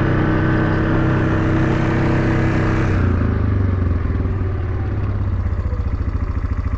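Vehicle engine running under way. About three seconds in, the note drops as it throttles back, settling into a lower, evenly pulsing run.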